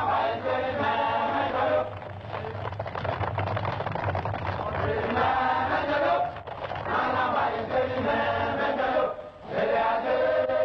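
Voices chanting in chorus, in phrases of a second or two broken by short pauses.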